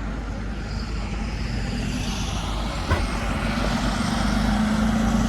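Street traffic with a heavy vehicle's engine running and growing louder in the second half, and a single sharp click about three seconds in.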